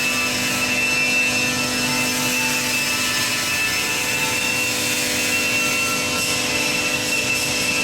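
Pet bedding baler running: a steady machine hum with a high, steady whine over a constant rush of noise.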